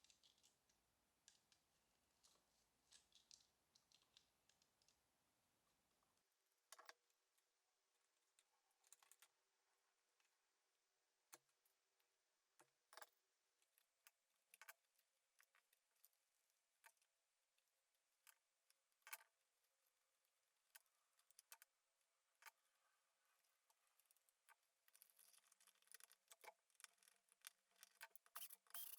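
Near silence with faint scattered clicks and ticks, irregular and a little denser near the end.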